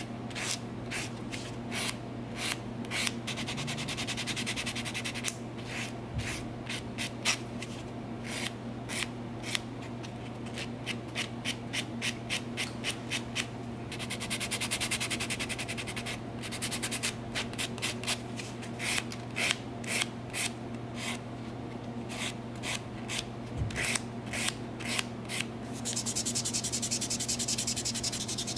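Hand nail file rasping back and forth across a long gel nail, filing down the gel coat for removal. It goes in quick separate strokes, about three or four a second, and twice runs together into a continuous rasp, over a faint steady low hum.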